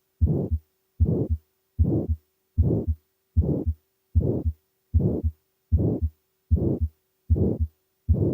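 Heart heard through a stethoscope, beating steadily at a little under 80 beats a minute, each beat a short dense burst of the systolic murmur of aortic stenosis.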